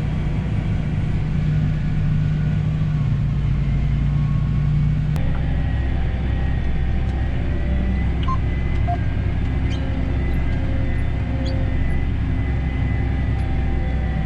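Heavy farm machinery engine running steadily under harvest work, a constant low drone. About five seconds in there is a faint click and the hum shifts in pitch.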